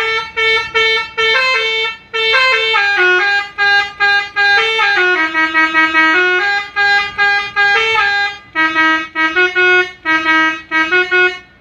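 Telolet musical bus horn playing a tune: a run of short toots, then longer held notes stepping up and down in pitch, then quick short toots again, stopping shortly before the end.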